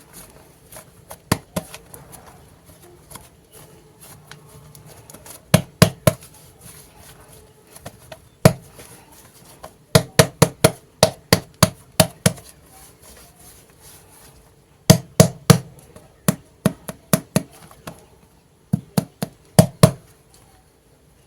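Sharp taps on a hard surface in quick runs of several strikes, about four a second at their fastest, with short pauses between the runs.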